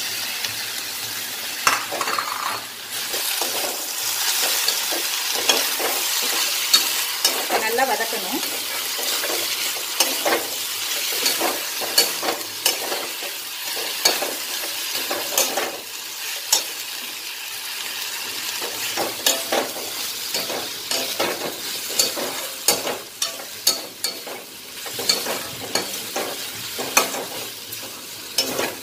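Mint leaves, onions, garlic and ginger sizzling in hot oil in a steel kadai while a metal spatula stirs them, with frequent sharp clicks and scrapes of the spatula against the pan. The sizzle is strongest in the first half; the stirring clicks come thicker toward the end.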